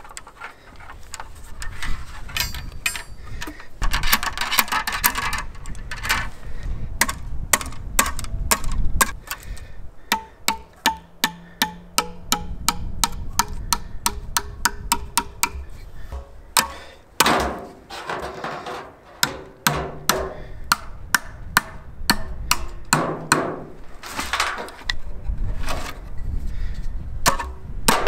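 Wooden mallet knocking on a log, tapping a wire band into place around it: runs of sharp knocks, most regular in the middle at about three a second.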